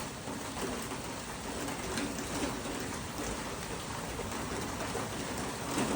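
Steady, moderate rainfall: an even hiss of rain, not really heavy.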